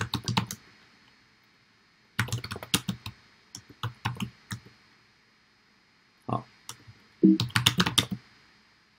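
Computer keyboard being typed on in several short bursts of rapid keystrokes, with pauses of a second or so between bursts.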